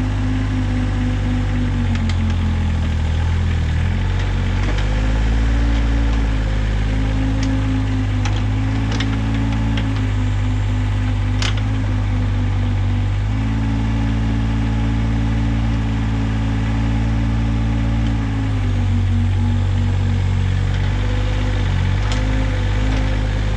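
Bobcat X320 mini excavator's diesel engine running steadily. Its pitch sags and recovers as the hydraulics take load while digging. A few sharp clicks of the steel bucket on soil and stones come around the middle.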